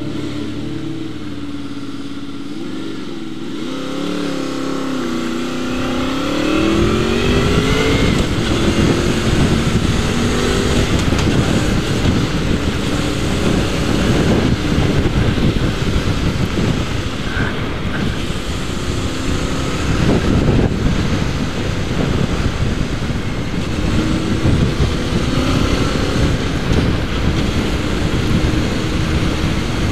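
Motorcycle engine ticking over, then rising in pitch as it pulls away about five seconds in. After that comes steady riding, with loud wind noise rushing over the microphone and the engine note underneath.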